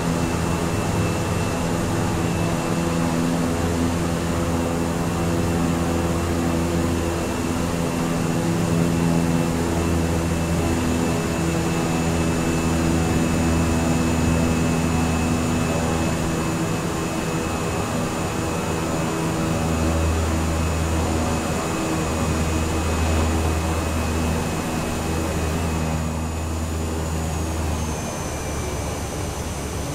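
Cessna light aircraft's piston engine and propeller droning steadily in flight. The pitch and level dip slightly near the end.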